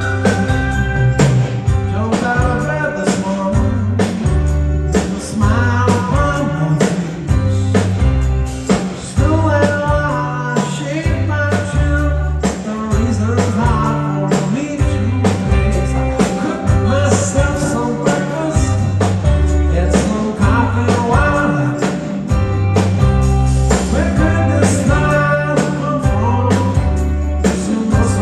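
Live band playing a mid-tempo pop-rock song with bass guitar, drum kit and a melodic lead line at full volume.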